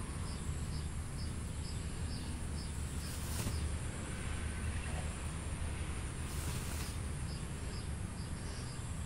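Outdoor ambience: a short high chirp repeats evenly about three times a second over a steady low rumble, with a brief rustle about three seconds in and another near seven seconds.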